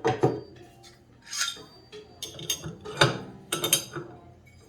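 Metal parts of a bowl chopper clinking and clanking as they are handled and fitted onto the blade shaft: several sharp metal knocks, some with a short ring.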